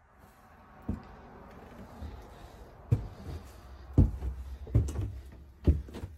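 Footsteps climbing old wooden stairs: dull thuds about once a second.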